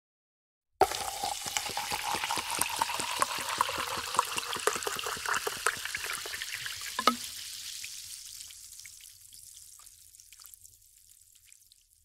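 Cola poured into a glass: pouring and fizzing start suddenly about a second in and run for about six seconds, then the pour stops and the carbonation fizz fades away with scattered small pops.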